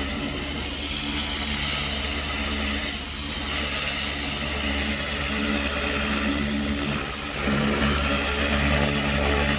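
A small engine running steadily, with an even hiss over it.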